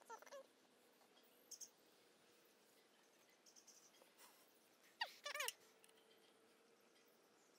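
Mostly near silence, broken by a few short high squeaks that fall in pitch, the loudest pair about five seconds in, with a couple of faint high clicks before them.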